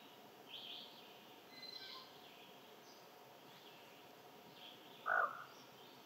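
Wild birds calling over a steady background hiss: short high chirps about half a second and two seconds in, then one louder, lower call about five seconds in.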